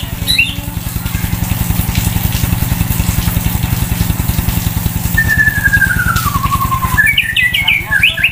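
An engine idling steadily, with a caged white-rumped shama singing over it: a few short notes at the start, one long falling whistle about two-thirds through, then a quick run of varied high notes near the end.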